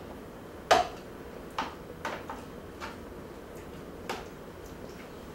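Knife clinking and scraping against the inside of a metal can while scooping out refried beans: about six separate short clicks, the sharpest about a second in.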